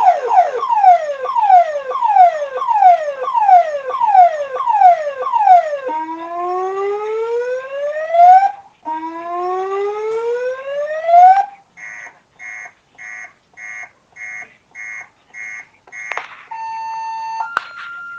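Electronic ambulance siren switching through its tones. It begins with a fast falling yelp, then slower falling sweeps at about one and a half a second. After about six seconds come two long rising whoops, each about two and a half seconds. Then a run of about eight short beeps, and near the end a steady held tone.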